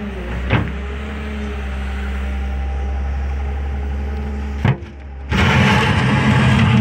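Caterpillar M316D wheeled excavator's diesel engine running steadily, with a couple of short knocks. About five seconds in it dips briefly, then comes back louder and rougher.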